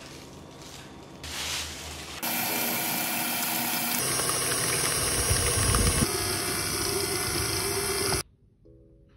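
Stand mixer, a KitchenAid Artisan, running and beating soft-cookie dough in its bowl: a loud steady motor noise that starts about two seconds in and cuts off suddenly near the end.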